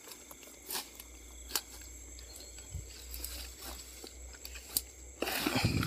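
Grass and undergrowth rustling as a gloved hand parts it, with a few sharp snaps and a louder rustle near the end. Night insects trill steadily in the background.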